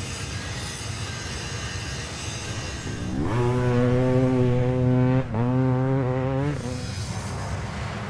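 Two-stroke dirt bike engine revved up about three seconds in and held at steady high revs, blipped again a little after five seconds, then shut off, over a steady low rumbling noise.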